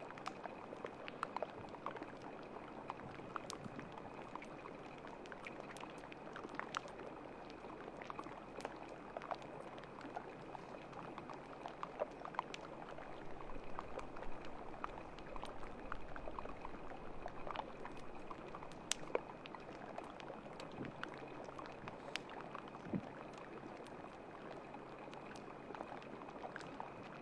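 Water lapping and trickling at an ice edge: a steady hiss with many small scattered clicks and pops.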